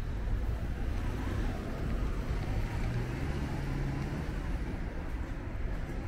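Street traffic noise: a steady low rumble, with a motor vehicle's engine humming more clearly for a second or two around the middle.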